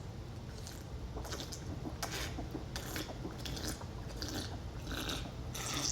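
Close-up chewing and biting of sushi, with scattered small clicks.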